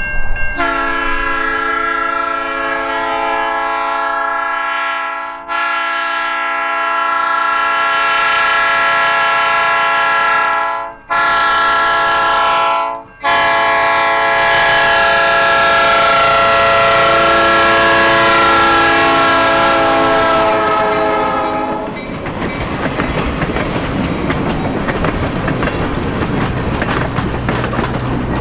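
Locomotive air horn sounding the grade-crossing signal, long, long, short, long, as a chord of several notes whose pitch drops during the final long blast as the train passes. It is followed by the rumble of the passing train and its wheels clicking over the rail joints.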